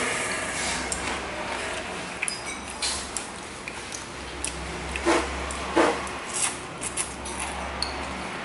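Someone eating noodles with plastic chopsticks from a bowl: light clicks of the chopsticks against the bowl, with a couple of louder short eating noises about five and six seconds in, over a low steady hum.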